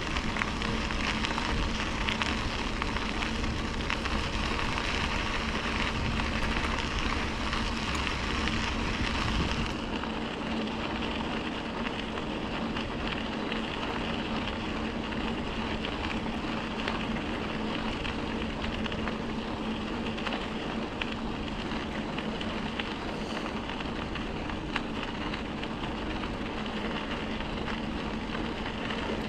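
Steady riding noise from a bicycle on the trail: wind on the microphone and tyres rolling over the trail surface. The noise eases a little about ten seconds in.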